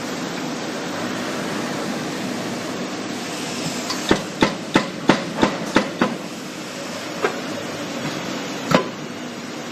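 Foundry sand molding machine at work: a quick run of about seven sharp knocks over two seconds, then two more single knocks, over a steady hiss of workshop noise.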